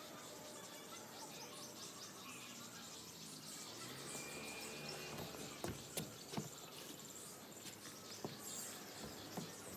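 Faint outdoor ambience of birds and insects chirping, with a low hum coming in about four seconds in and a few light knocks in the second half.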